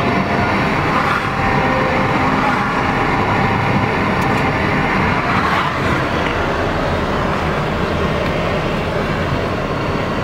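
Steady road and wind noise of a car, heard from inside its cabin.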